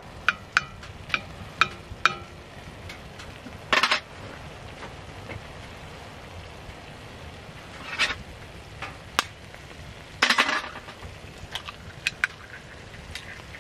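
Metal spoon stirring and scraping food in a cast-iron skillet: a series of sharp clicks and taps against the pan, with a few longer scrapes, over a steady low sizzle of frying.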